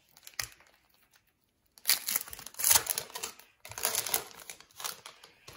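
Foil wrapper of a hockey card pack being torn open and crinkled, a dense run of sharp crackling that starts about two seconds in after a near-quiet start.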